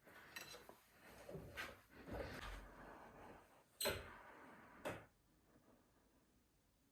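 Faint clinks and knocks of dishes and cutlery being handled, with two sharper clinks near the middle, then near quiet.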